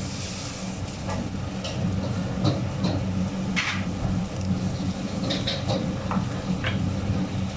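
Eating sounds from a mukbang of som tam crab salad: a scattered series of short crunches and clicks, over a steady low hum.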